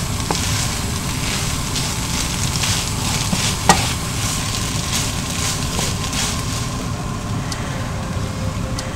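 Potato strips and sliced onions sizzling in a nonstick frying pan as a spatula stirs and tosses them, with scattered clicks of the spatula against the pan, the loudest a little under four seconds in. The sizzle is the added sake and mentsuyu cooking off in the stir-fry.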